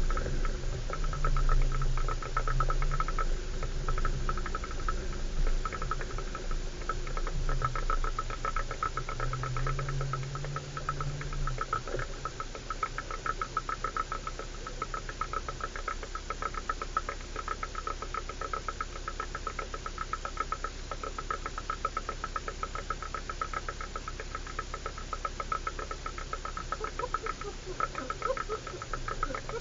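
A 4x4 driving slowly over a rough track: a low engine note that swells twice in the first dozen seconds, under a steady fast ticking rattle of about five ticks a second.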